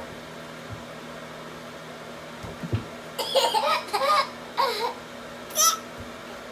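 A baby laughing in short, high squealing bursts over a low steady room hum. The laughter starts about halfway through, after a few soft thumps.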